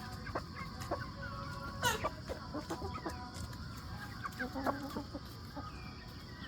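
Backyard flock of hens clucking and calling in short, scattered notes, with one louder call about two seconds in, over a steady high-pitched background hum.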